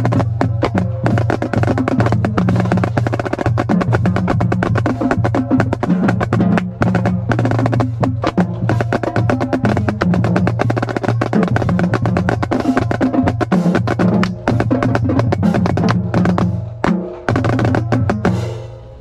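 Marching snare drum played in a fast, dense cadence of strokes and rolls over a steady low hum, stopping near the end.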